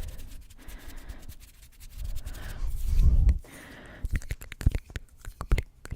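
Close-miked ASMR trigger sounds: a rushing, breathy swell like blowing into the microphone about two to three seconds in, then a run of quick, sharp clicks and taps from about four seconds.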